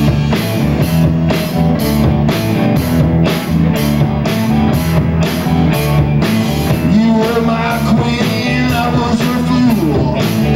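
Live rock band playing an instrumental stretch: electric guitars over drums, with a steady cymbal beat.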